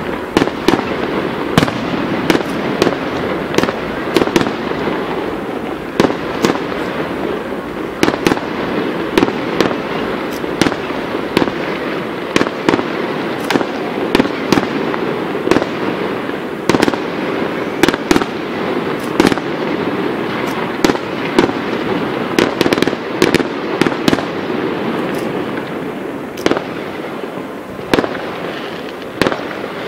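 Fireworks display: a continuous crackle and rumble with sharp bangs of exploding shells about once a second.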